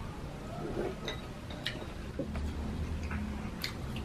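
Eating at a table close to the microphone: a few light, sharp clicks and taps spread out over a low steady hum.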